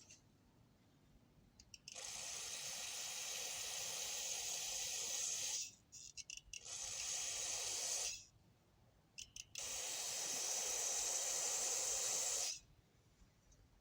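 Aerosol spray cleaner hissing in three bursts, two long and one short, with brief sputters between, as the old grease is sprayed off the ratchet's parts.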